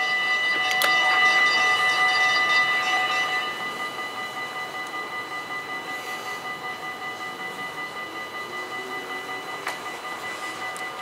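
Rails ringing with several steady high tones ahead of a train that is approaching out of sight. About four seconds in the sound drops a little, and a soft regular pulsing of about three beats a second comes in.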